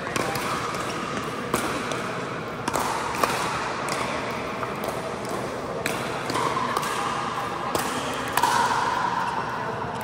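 Pickleball rally: paddles striking a plastic pickleball in a series of sharp pops, roughly one every second, with a short ring after each in the hall.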